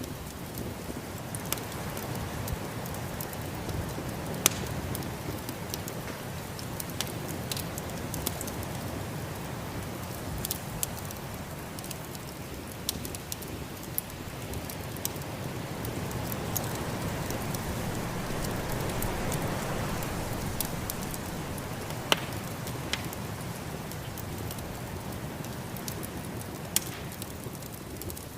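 Wood fire crackling with scattered sharp pops over the steady noise of snowstorm wind, which swells and then eases off about midway.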